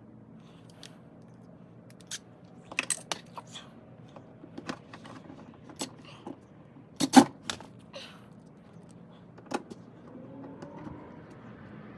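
Scattered sharp plastic clicks and knocks from a 3D-printed hinge or latch strap being fitted onto an Igloo ice chest, with one loud knock about seven seconds in.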